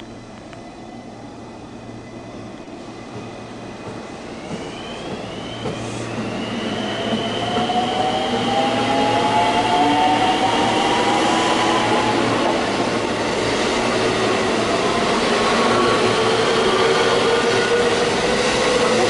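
JR West 223-series Special Rapid electric train pulling into the station, its running noise growing steadily louder over the first eight seconds and then holding. High whining tones from the train, shifting slowly in pitch, rise out of the noise from about four seconds in.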